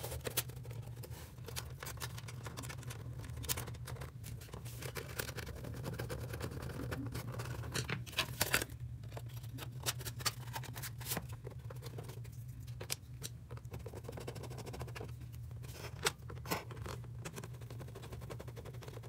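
Scattered clicks, taps and scrapes of the metal housing and plastic end caps of an electric insect killer being handled and fitted together, with a screwdriver at work near the end. A steady low hum runs underneath.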